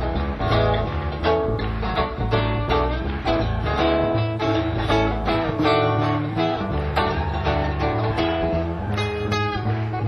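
Instrumental passage of live acoustic music: an acoustic guitar picking a stream of notes over low bass notes.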